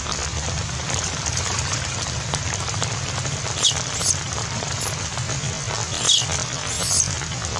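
Several short, high-pitched squeals from a newborn macaque, four in the second half, over a steady rain-like hiss.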